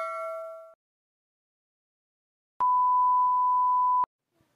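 Steady single-pitch test-tone beep lasting about a second and a half, the sound of a colour-bars test-pattern screen. It begins about two and a half seconds in, after the fading tail of a bell ding and a gap of silence.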